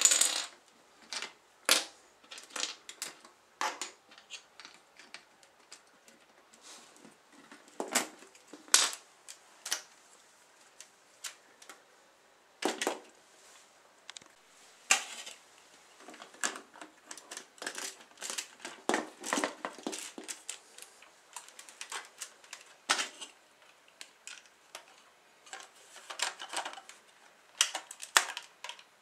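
Hard plastic Lego parts of a bolt-action brick-shooter rifle clicking and clacking irregularly as it is handled and worked, with a loud clack at the very start.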